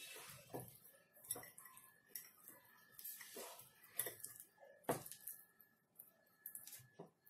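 Faint, irregular wet squishing and light clicks as a bare hand mixes boiled baby potatoes with a thick green marinade and roasted gram flour in a glass bowl.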